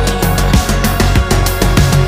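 Background music with a heavy bass line and a steady drum beat.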